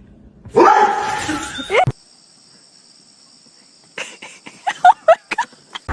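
A short noisy burst about half a second in, then, near the end, a quick run of short, high yelps from a pet animal.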